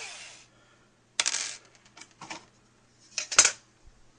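A ringing tone fading out, then a few separate sharp clicks and clatters of small hard objects, loudest about three and a half seconds in.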